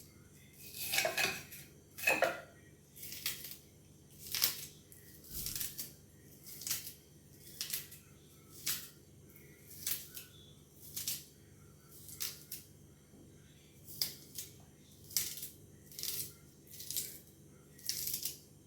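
Knife cutting vegetables on a cutting board in steady strokes, about one a second, with two heavier cuts near the start.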